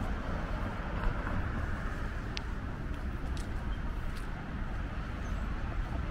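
Steady low rumble of city traffic, with a few faint ticks.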